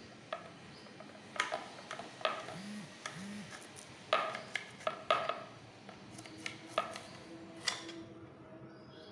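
Serrated kitchen knife slicing through bitter gourd and knocking on a wooden chopping board: about a dozen short, irregular taps and scrapes, most of them in the middle stretch.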